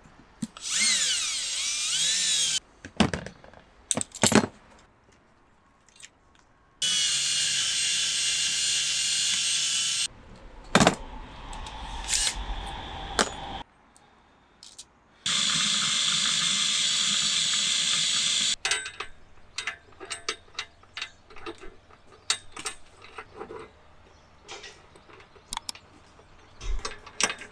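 Cordless drill boring through metal L-brackets in three runs of a few seconds each, with a steady high whine, separated by clicks and knocks. The second half holds scattered light clicks and taps.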